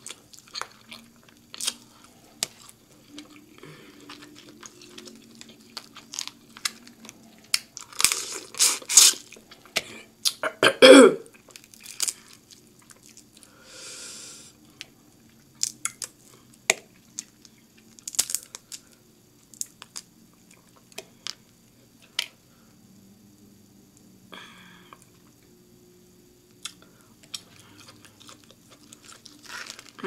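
Close-miked eating of a seafood boil: wet chewing, slurping and sucking, with scattered clicks and cracks of crab and crawfish shells being picked apart by hand. A cluster of louder slurps and a short falling vocal sound about a third of the way in are the loudest moments.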